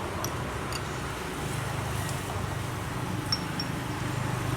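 Steady low rumble of road traffic and engines, with a few light clicks and a brief high ping about three seconds in.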